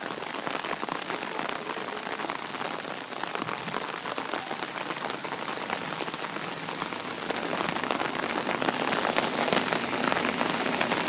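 Heavy pouring rain: a steady hiss thick with the ticks of single drops landing close by, growing a little louder about seven seconds in.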